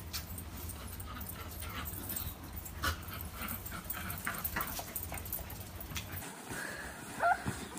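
A dog making short, high whimpering sounds again and again, over a steady low rumble that stops about six seconds in.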